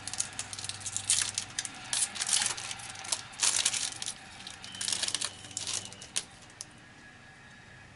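Trading cards and their foil pack wrapper being handled: a quick run of paper-and-foil rustles, crinkles and card flicks that stops about six seconds in.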